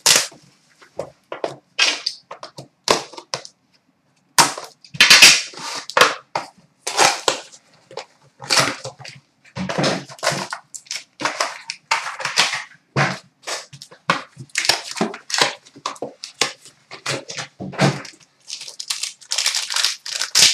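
Plastic and foil trading-card packaging crinkling and tearing in irregular bursts as a card box and its pack are unwrapped by hand, with a short pause about 3 to 4 seconds in.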